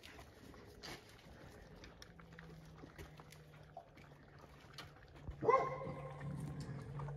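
A litter of five-week-old Labrador puppies eating dry kibble together from one bowl: many small crunching clicks. About five and a half seconds in, a sudden high steady whine cuts in and holds for about a second and a half, over a low hum.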